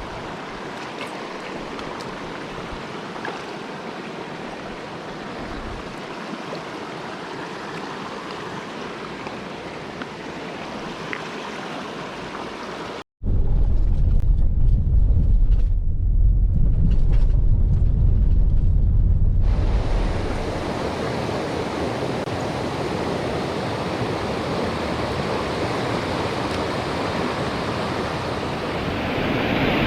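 Rushing water of a mountain stream, a steady hiss. About 13 s in it cuts abruptly to several seconds of loud, muffled low rumble like wind buffeting the microphone, then the stream noise returns, brighter and fuller.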